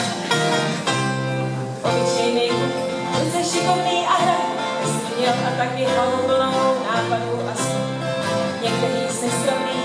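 A small folk band playing: two guitars strumming over a bass guitar line, with a woman singing from about four seconds in.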